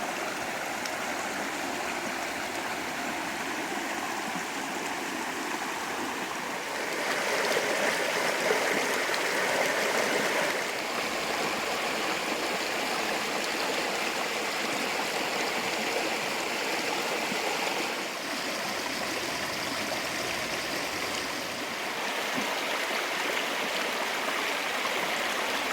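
Creek water flowing in a steady rush, louder for a few seconds between about 7 and 11 seconds in.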